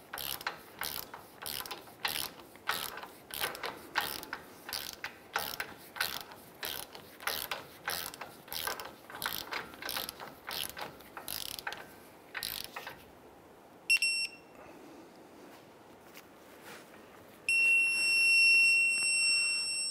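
Torque wrench ratcheting the outer tie rod end nut tight, its pawl clicking in repeated back-and-forth strokes for about thirteen seconds. Then a short electronic beep, and a few seconds later a long steady beep from the wrench, its signal that the set torque or angle has been reached.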